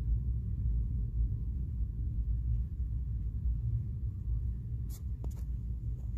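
Thunder rumbling low and continuously, slowly easing off, with a couple of sharp clicks about five seconds in.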